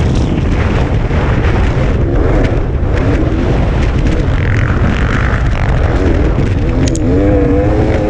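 Dirt bike engine running hard under throttle, its pitch rising and falling as the rider rides on and off the gas, clearest in the middle and again near the end, over heavy wind rumble on the microphone.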